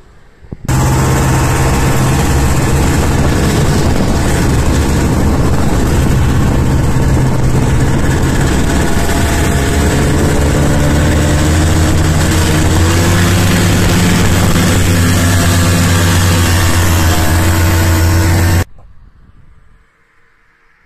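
Snowmobile engine running under way, heard from the seat, over a loud hiss of track and snow. It starts suddenly about a second in, climbs a little in pitch past the middle as it speeds up, and cuts off suddenly near the end.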